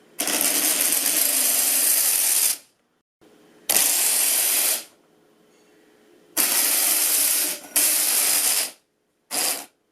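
Five separate bursts of steady hissing, each lasting from about half a second to two and a half seconds, with a faint steady hum between them.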